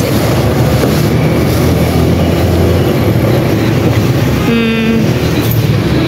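Loud, steady rumble of road traffic. A short steady tone comes about four and a half seconds in.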